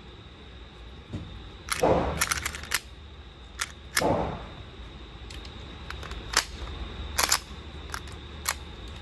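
Pistol shots echoing in an indoor shooting range: a string of irregularly spaced sharp cracks, the loudest about two and four seconds in.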